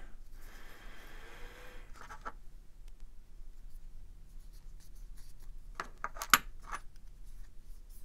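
Alcohol swab rubbing over small knife parts for about two seconds, then soft handling, then a few sharp clicks of small metal knife parts tapping together about six seconds in.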